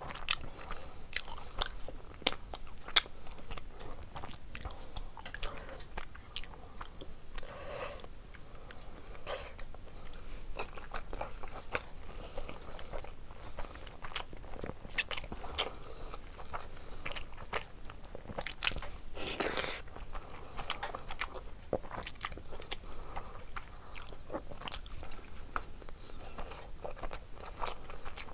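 Close-miked eating of rice and curry: wet chewing, lip smacks and irregular mouth clicks going on throughout, with two sharper clicks about two to three seconds in.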